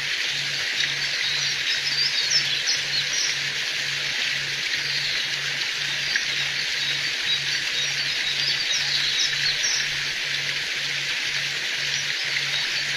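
Steady hiss of running water with many short, high bird chirps scattered over it. Underneath is an evenly repeating low pulse, about two to three a second.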